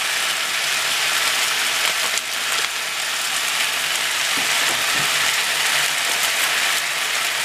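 Chicken and vegetables with sauce sizzling steadily in a frying pan, with a couple of faint clicks.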